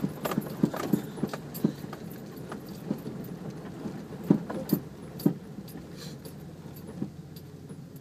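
Off-road vehicle driving over rough ground: a steady low engine hum under irregular sharp knocks and rattles, which thin out after about five seconds.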